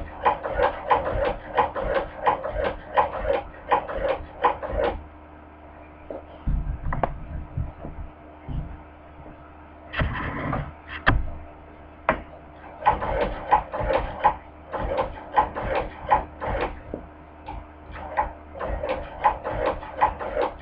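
Hand-crank cobbler sewing machine stitching through thick pleather, a rhythmic clack of about three stitches a second. It stops for several seconds midway, with a few knocks and clicks, then starts stitching again.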